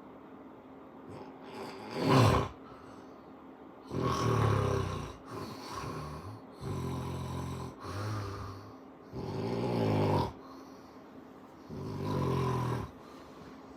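Snoring: a short, sharp snort about two seconds in, then about six snores, each about a second long, with short gaps between breaths.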